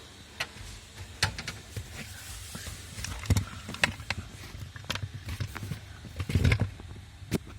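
Hands working the plastic footwell trim under a car's dashboard: scattered clicks, taps and knocks with low handling rumble, and a heavier thump about six and a half seconds in.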